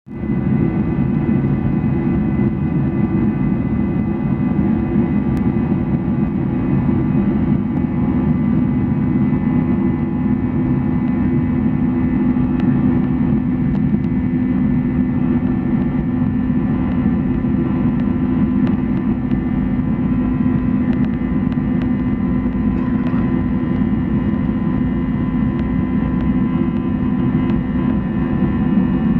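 Boeing 737-900's CFM56 jet engines running at steady high power during takeoff: a loud, even noise heaviest in the low range, with several steady whining tones above it that hold their pitch.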